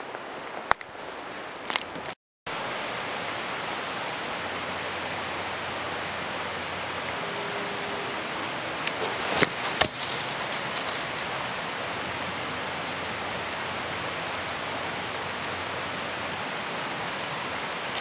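Steady rushing of a mountain stream, broken off for a moment about two seconds in, with a few short knocks and scuffs around the middle.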